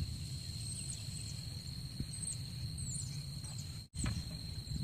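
Outdoor ambience: a low wind rumble on the microphone, a steady high-pitched insect drone and short, high, falling bird chirps, with the sound cutting out briefly just before the end.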